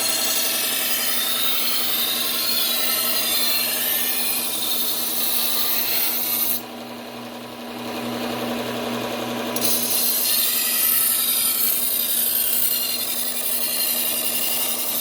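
Steel kitchen-knife edge ground on a slow-speed belt sander's 120-grit Cubitron belt, a steady rasping hiss over the motor's hum, while the sharpener works to raise an even burr along the edge. Near the middle the grinding stops for about three seconds and only the motor and belt run, then the grinding starts again.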